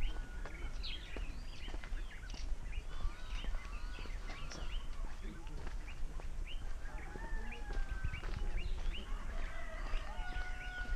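Many small birds chirping and calling over and over, with the walker's footsteps crunching on a dirt road and a steady low rumble underneath.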